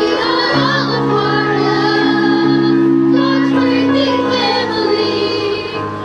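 Children's choir singing together over an accompaniment of sustained chords, which change about half a second in and again about midway through.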